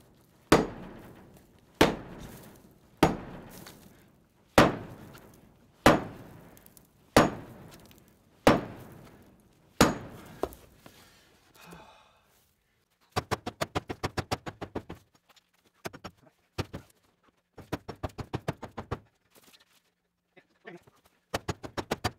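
Sledgehammer blows on a concrete block wall, about eight heavy strikes a little over a second apart, each ringing out, to break out a row of saw-cut blocks. In the second half come several quick runs of short, sharp clicking knocks.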